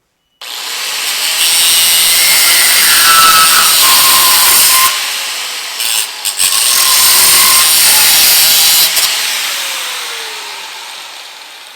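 A high-speed power cutting tool trimming excess steel off a freshly welded truck rocker panel. It starts suddenly and cuts loudly, stops for a moment about halfway through, cuts again, then spins down with a falling whine near the end.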